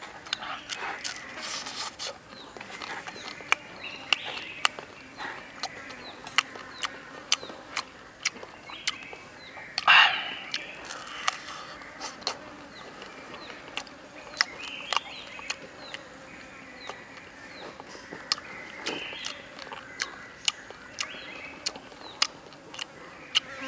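Close-up mouth sounds of a person eating grilled frog: wet lip-smacks and chewing clicks at irregular intervals, with scratchy bursts as the meat is bitten and torn. One louder, longer burst comes about ten seconds in.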